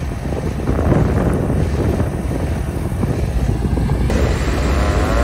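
Wind buffeting the microphone, a steady low rumble. Right at the end, a 6-volt Sterling "Free Rolling" siren begins to wind up with a rising whine.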